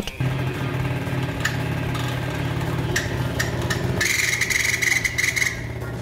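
Scooter engine idling, with a few short high chirps and, about four seconds in, a high squeal lasting about a second and a half. This is the squeak that came up only in damp weather, which the owner suspects comes from the variator case: the clutch, variator or drive belt.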